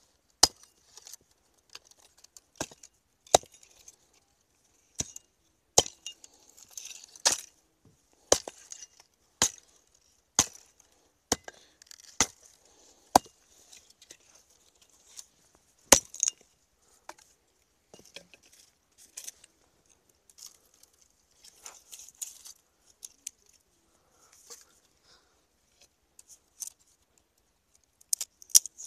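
Dry twig stems clicking and snapping sharply as they are bent and worked into a hand-woven basket, about once a second at first and then as softer crackling. A quick run of sharp knocks comes near the end.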